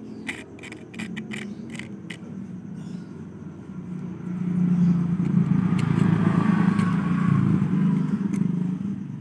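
Suzuki Carry Futura injection engine running, revved up for about four seconds from a little after a third of the way in, then settling back. It carries a vibration noise that the owner traces to the oil filter area and puts down to poor maintenance.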